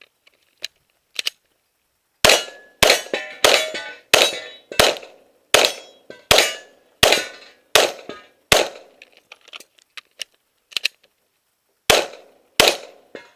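Glock pistol fired in a rapid string: ten shots at a steady pace of about one every 0.7 seconds, each with a short ringing tail. After a pause of about three seconds come two more shots near the end.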